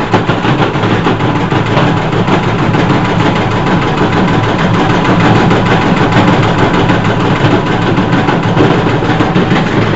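Washing machine spinning hard and vibrating violently, a loud steady rumbling rattle as the machine shakes and walks across the floor.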